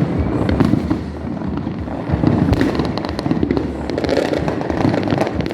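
Many fireworks going off at once: a constant rumble of distant bursts with rapid crackling pops layered over it.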